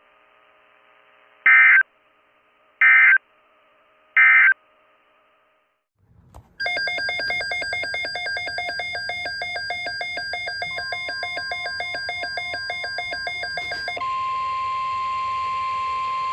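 Three short loud bursts of Emergency Alert System data tones, the end-of-message code closing a weather radio warning. After a pause comes about seven seconds of rapidly pulsing electronic alert tones, then a steady single-pitch NOAA Weather Radio alert tone near 1 kHz.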